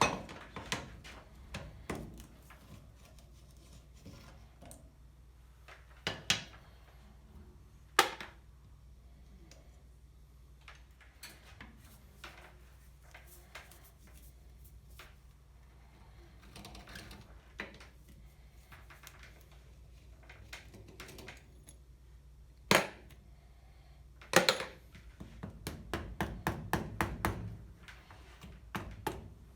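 Metal tools and starter-motor parts knocked and set down on a workbench: scattered sharp knocks and clicks, with a quick run of ticks near the end, over a steady low hum.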